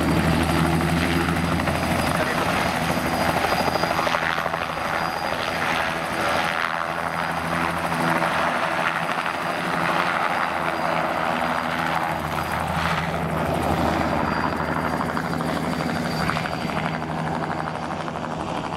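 AutoGyro Cavalon gyroplane in flight, its Rotax 915 iS turbocharged four-cylinder engine and pusher propeller running steadily. The low engine tone fades and swells again as the gyroplane turns and passes.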